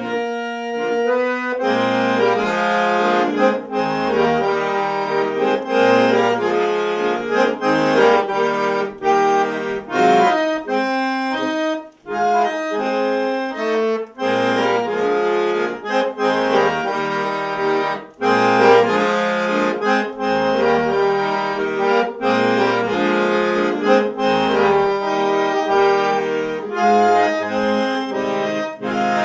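Solo accordion playing a tune: a melody and chords over recurring low bass notes, pausing briefly twice, about 12 and 18 seconds in.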